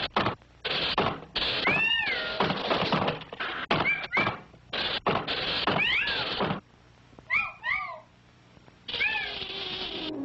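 Cartoon sound effects: a run of short, abruptly cut bursts of hiss, each carrying a squeaky tone that rises and falls like a meow. After a short lull with two pairs of squeaks, one more hiss burst with a squeak comes near the end.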